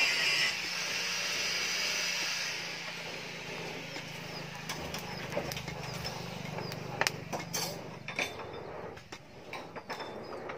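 Charcoal forge's air blower running with a steady low hum that stops about eight seconds in, while the smith's steel tongs clink and scrape against the axe blank and the charcoal in scattered sharp clicks.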